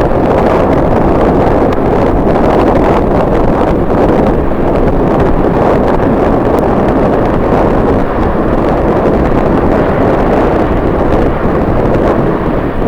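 Strong wind buffeting the camera microphone: a loud, steady rumbling roar with no break.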